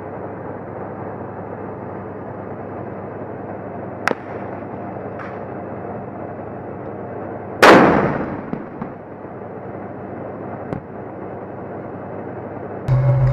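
A tank's main gun fires once, a very loud blast about two-thirds of the way in that dies away over about a second, over a steady background hiss. A single sharp crack, like a gunshot, comes about four seconds in.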